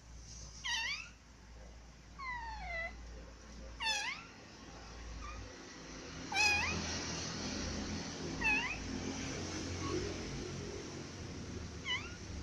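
Grey-and-white kitten meowing, about six short high-pitched meows spread out every second or two. From about halfway through, a steady rustling noise runs under the later meows.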